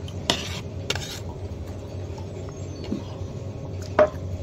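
Quiet mealtime sounds over a steady low background hum: a few light clicks of a cup and cutlery in the first second or so, and one sharper clink near the end.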